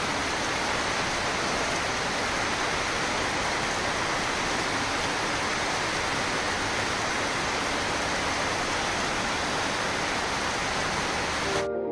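Steady rain falling, an even dense hiss that cuts off suddenly just before the end.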